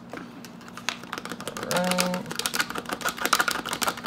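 A fork whisking a raw egg in a small plastic tub, the tines ticking rapidly against the sides from about two and a half seconds in. A brief hum sounds just before the ticking starts.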